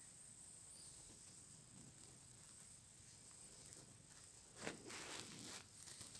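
Near silence: faint room tone with a steady high hiss, and a brief soft rustle about three-quarters of the way through.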